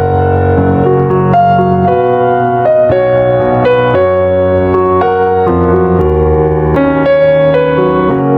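Piano music: a slow melody of single notes over held bass notes.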